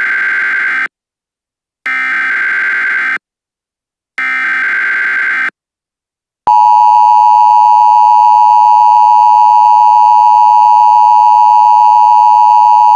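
Emergency Alert System tones: three bursts of SAME header data tones, each a little over a second long and about a second apart. About halfway in comes the steady, louder two-tone EAS attention signal (853 and 960 Hz sounding together).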